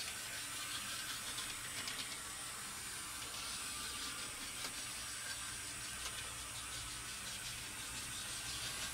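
Small OO gauge model shunter locomotive running round the track: a faint steady motor whirr with scattered light clicks.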